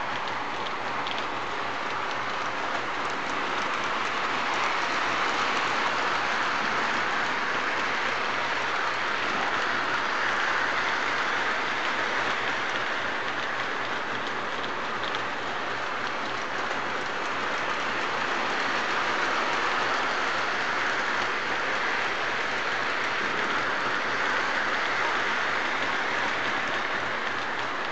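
Atlas O gauge model train, a Southern F3 diesel locomotive pulling its cars, running around a table-top track loop. A steady whirring, rushing rumble of wheels on rail and motors that swells and fades every several seconds as the train circles nearer and farther.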